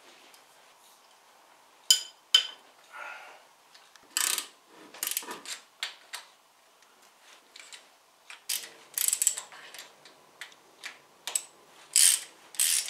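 Ratchet wrench clicking in several short runs with pauses between, plus a couple of sharp metal clicks about two seconds in, as the deep-set hex bolts of a Porsche 944 Turbo's camshaft housing are loosened.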